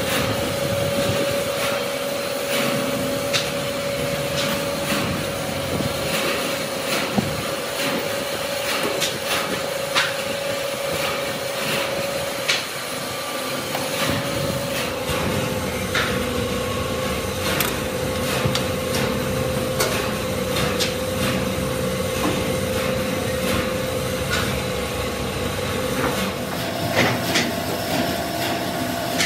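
Workshop machinery running with a steady hum, with scattered clinks and knocks through it.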